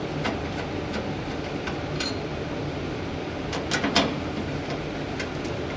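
A handheld Phillips screwdriver tightening 1/4 inch stainless steel bolts into a metal shelf bracket, giving light metallic clicks, with a quick cluster of sharper clicks a little past halfway. A steady background hum runs underneath.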